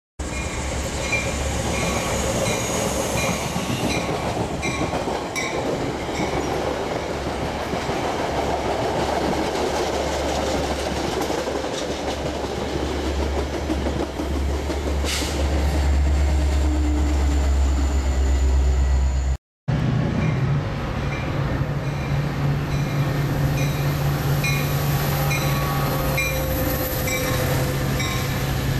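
Metra commuter train of stainless-steel bilevel cars passing close at speed: a continuous rail rumble with a steady run of wheel clicks. The low rumble grows heavier and then breaks off at a cut about two-thirds through, after which another pass continues with a steady low hum under the rumble.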